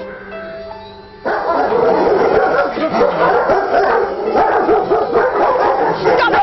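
Many dogs barking, yapping and whining all at once in a dense chorus that starts suddenly about a second in.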